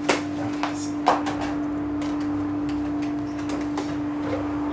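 A few light clicks and knocks, the sharpest about a second in, over a steady low hum.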